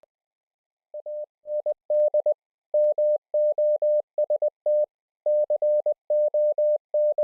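Morse code (CW) sidetone from one operator: a single steady mid-pitched tone keyed on and off in dots and dashes, starting about a second in and running in groups with short gaps, heard as audio sent over an internet link.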